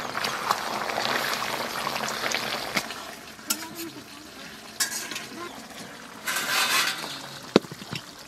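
Metal spatula stirring and scraping through a hot curry of fried dry fish and radish in a metal kadai, over a steady sizzle that fades after about three seconds. A few louder scrapes follow, and a sharp clink near the end.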